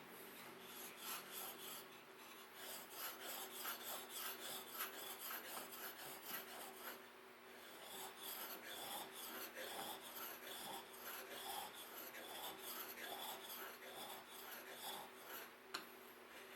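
Hand filing: quick, repeated scraping strokes of a file or rasp, with a short pause about seven seconds in.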